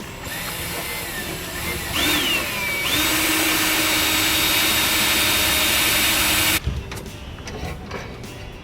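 Electric drill running as it bores a hole, its motor whine swooping up and down in pitch about two seconds in, then held steady at full speed until it stops suddenly near the end.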